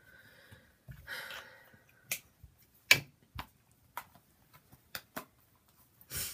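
Makeup containers handled on a counter: a string of separate sharp clicks and knocks, the loudest about three seconds in, with a short rustling noise about a second in and another near the end.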